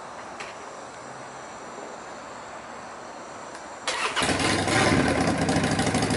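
Quiet outdoor background, then about four seconds in an engine starts up close by and keeps running loudly with a fast, even beat.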